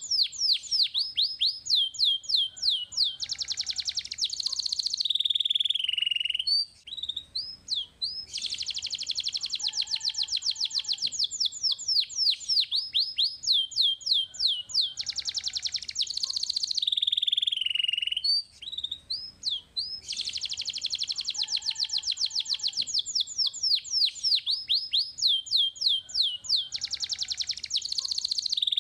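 Young canary singing: long, fast trills of rapidly repeated down-slurred notes, high-pitched, with brief breaks between phrases. The same song sequence comes round again about every 12 seconds, as in a looped recording.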